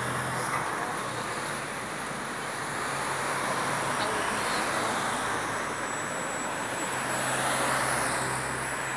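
Street traffic: a steady rush of car engines and tyre noise, with a low engine hum that fades early on and swells again near the end as vehicles pass.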